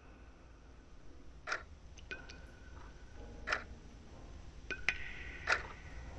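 Sharp ticks about every two seconds, with a few fainter clicks between and a short held ringing tone after some of them, over a low rumble that slowly grows louder: horror-film sound design.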